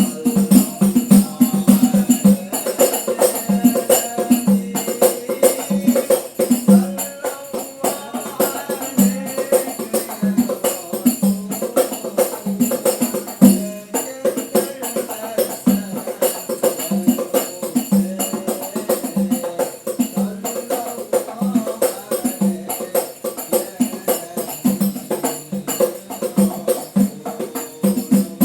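Music with a steady, rhythmic percussion beat, evenly repeated strikes throughout.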